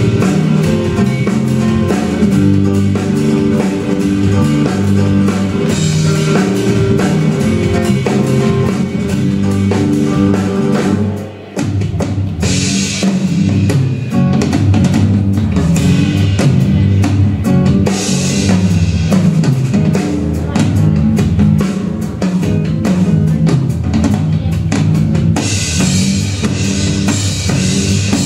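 Instrumental break of a song played by a band with drum kit, with no singing, and a brief drop in the music about eleven seconds in.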